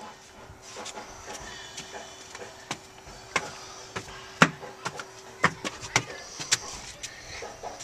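Footsteps and knocks on the wooden planks of a playground climbing structure: irregular sharp clacks, a few of them louder, over a faint steady hum that stops about five seconds in.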